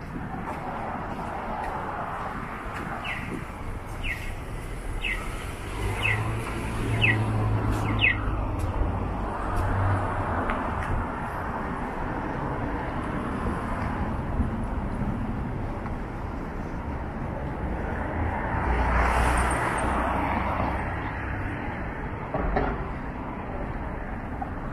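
City street ambience with passing traffic and the hum of engines. A few seconds in come six short, high, falling chirps about a second apart, and a vehicle swells past a little before the end.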